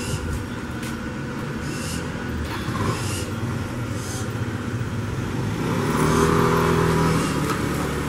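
Barn owls giving a few short, harsh hisses, over steady street-traffic noise. A vehicle engine passes, growing loudest about six to seven seconds in.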